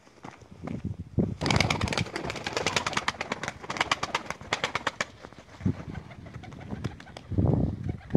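Mardin pigeons' wings flapping in a rapid run of claps for about three and a half seconds as the birds scuffle and one takes off. A few low, dull sounds follow near the end.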